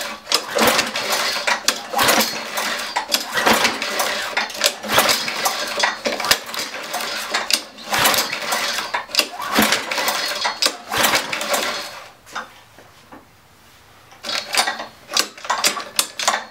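Honda GCV160 lawnmower engine being cranked over and over with its pull-cord recoil starter, a rattling turn-over about every second and a half, with a few more quick ones near the end, and it never fires. The owner takes the no-start for a carburetor problem from sitting.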